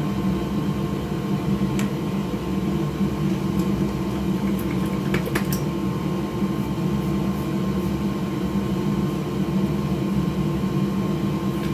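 Steady whir of a small electric fan or blower with a constant hum, joined by a few faint light clicks about two and five seconds in.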